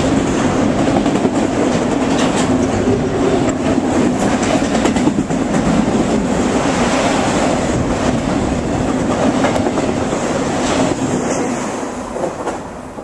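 Empty autorack cars of a BNSF freight train rolling past at speed, a loud steady rumble with steel wheels clicking over the rail joints. The noise fades near the end as the last car goes by.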